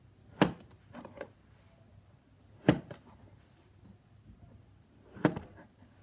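Three sharp knocks about two and a half seconds apart, with a few softer taps after the first: a small knife cutting through blocks of kinetic sand and striking the plastic board beneath.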